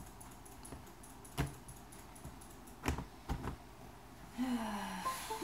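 Microsoft Surface Book screen being set back onto its keyboard base: a few separate sharp clicks and knocks as it seats into the hinge. Near the end comes a short falling tone with a few brighter notes above it.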